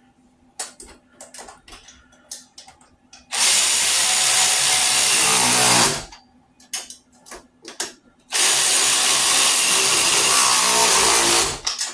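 Bauer 3/8-inch cordless ratchet running in two steady runs of about two and a half and three seconds, driving nuts down to tighten the cart's tray. Light clicks and taps of parts being handled come before and between the runs.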